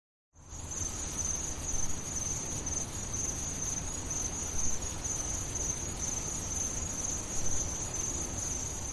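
Crickets trilling in one steady, high-pitched shimmer over a low background rumble.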